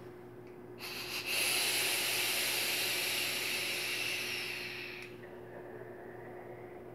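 Vape hissing during a long, hard drag of about four seconds as the coil fires and air is pulled through the atomizer, fading out near the end, followed by a softer breath out.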